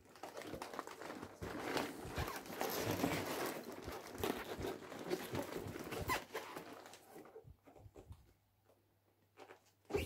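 Cardboard LEGO set box being handled and turned over by a gloved hand: continuous rustling and scraping with many light taps, thinning out after about seven seconds into a few scattered taps.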